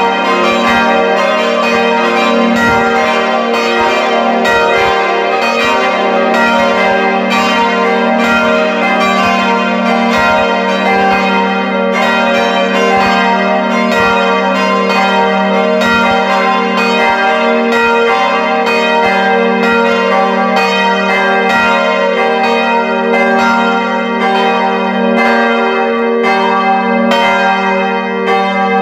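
Swinging bronze church bells ringing together in a peal, heard up close in the bell tower, their strokes overlapping without a break. The set is four Friedrich Wilhelm Schilling bells of 1962 tuned to g', b', c'' and d'', plus a Mathias Stapf bell of 1772 tuned to e-flat''.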